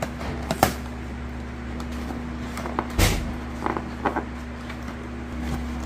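A cardboard cake box being handled and opened on a wooden table: a few short taps and scrapes of card, the loudest about three seconds in, over a steady low hum.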